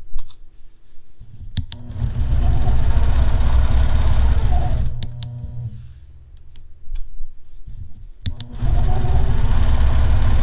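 Longarm quilting machine stitching a seam through canvas, running in two spells: from about two seconds in to five, and again from about eight and a half seconds. A few sharp clicks fall in the pauses.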